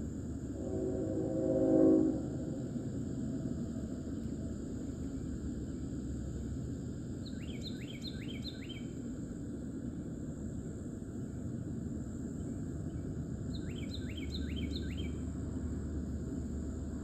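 Woodland ambience: a steady high insect drone over a low rumble, with a bird giving a quick run of four falling chirps twice, about seven and fourteen seconds in. A low pitched tone, the loudest sound, swells and stops about two seconds in.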